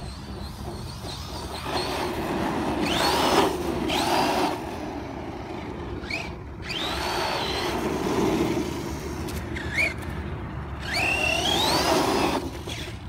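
DHK Maximus 1/8-scale brushless RC monster truck driving, its motor whining up in pitch in three bursts of acceleration over a steady rushing noise.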